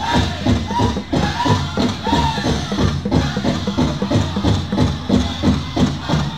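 Powwow drum group performing a fancy shawl dance song: a big drum struck in a steady, even fast beat. In the first half, singers' high voices rise and fall over the drum.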